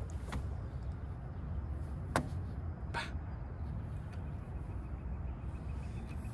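Steady low outdoor rumble, with three sharp knocks on the metal playground structure in the first three seconds, the last two under a second apart.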